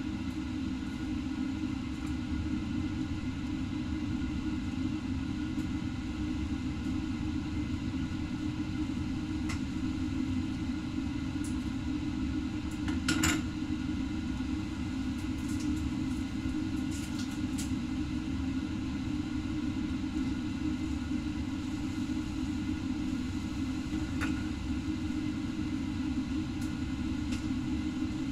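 Steady low rumble of kitchen machinery running, with one sharp clink about halfway through, like a glass sauce bottle knocking, and a few faint clicks.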